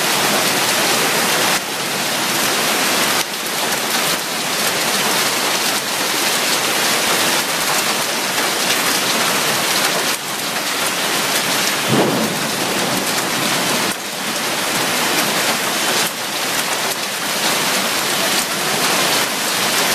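Hailstorm with heavy rain: a dense, steady hiss of hailstones and rain hitting wet pavement.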